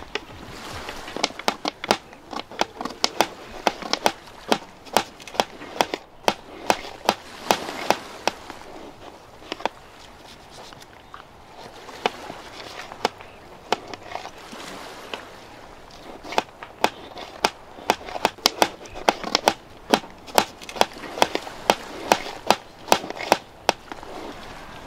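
Kitchen knives chopping cucumber and tomato on a steel tray: many sharp, irregular knife strikes, several a second, thinning out for a few seconds midway.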